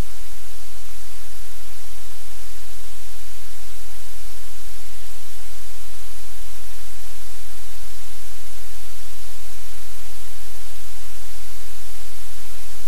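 Loud steady static hiss with a low hum beneath it.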